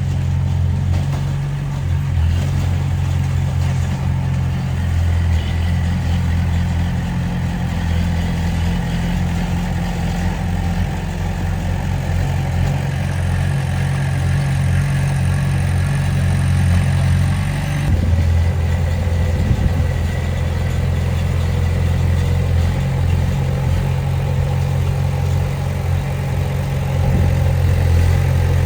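Bulldozer's diesel engine running steadily with a deep, continuous drone, with a brief change in the sound about two-thirds of the way through.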